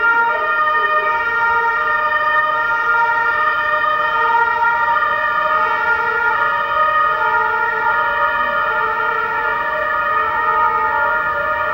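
A steady whine made of several held tones, unchanging in pitch and level, of the kind a standing electric train's electrical equipment gives off at a station.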